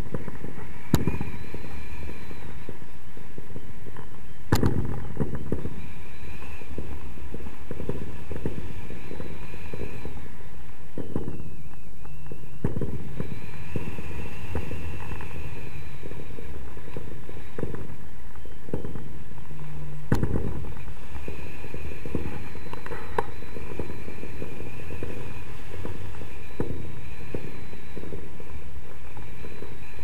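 Wind rushing and buffeting over an action camera's microphone in paraglider flight, a steady crackling rumble with sharp cracks about a second in, at about four and a half seconds, and about twenty seconds in.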